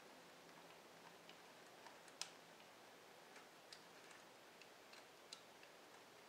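Near silence with a handful of faint, irregular clicks, the sharpest about two seconds in, from hands working at a motorcycle's ignition coil, its connector and wiring.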